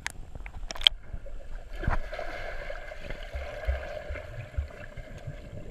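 Muffled underwater sound of pool water heard through a camera's waterproof housing, with a dog paddling and stirring up bubbles; low thumps come through about halfway. A couple of sharp knocks sound in the first second, before the steady muffled noise sets in.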